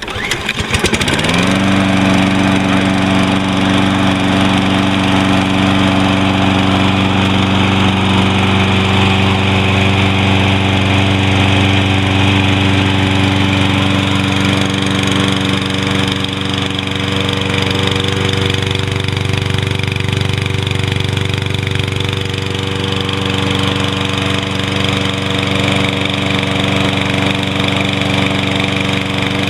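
Toro Recycler 20371 lawn mower's 149cc Kohler engine on a cold start: it catches about a second in, rises to speed and settles into a steady run at full throttle.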